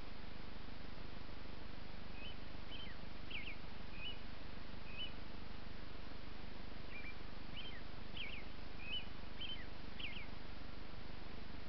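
A songbird singing two short phrases of quick high chirps, the first starting about two seconds in and the second about seven seconds in, over a steady hiss.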